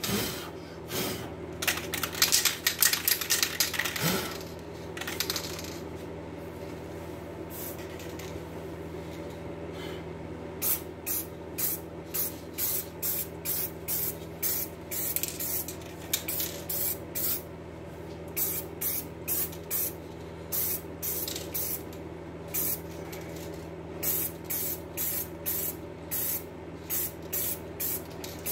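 Aerosol spray-paint can spraying paint onto an alloy wheel rim in short bursts. The bursts come densely for the first few seconds, pause, then resume as a long regular series of quick bursts, roughly two a second.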